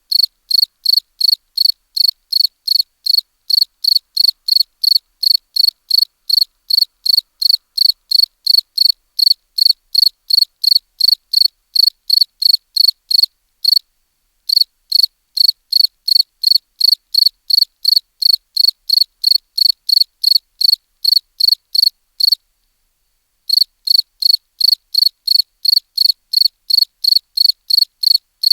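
Cricket chirping in an even rhythm, about three short high chirps a second, with silence between chirps and two brief pauses.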